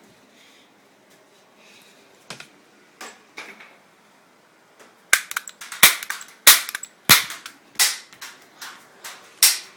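Toy cap gun firing caps: a few faint clicks, then from about halfway a rapid run of sharp pops, roughly two a second.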